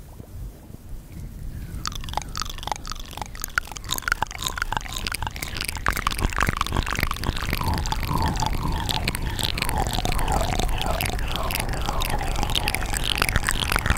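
3D ASMR mouth sounds: rapid wet clicks and smacks of the lips and tongue. They start faint and thin, then grow denser and louder from about two seconds in, turning into a steady wet crackle.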